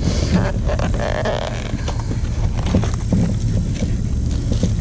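Clear plastic wrap crinkling and a cardboard end cap rustling as they are handled and pulled off a packaged work light: a run of small irregular crackles and ticks, busiest in the first second or so. Under them runs a steady low rumble.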